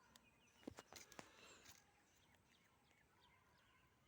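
Near silence outdoors: a few soft knocks about a second in, with faint short bird chirps in the background.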